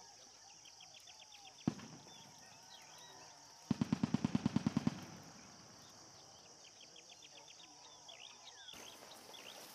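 A single gunshot, then about two seconds later a rapid burst of roughly a dozen rounds, about ten a second, from an automatic weapon.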